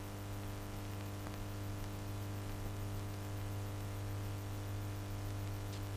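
Steady low hum and hiss of an old film soundtrack, with no other sound.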